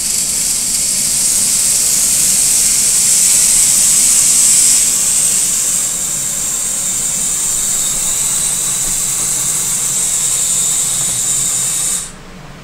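VEX robot arm's electric motors and gear trains running as the arm moves through its joint positions: a loud, high-pitched hissing whir that starts abruptly, drops a little about five seconds in, and cuts off suddenly near the end.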